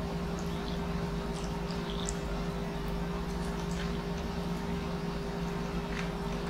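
Steady low hum with faint, scattered crinkles and light clicks as a sheet of dry roasted nori and wooden chopsticks are handled to wrap noodles.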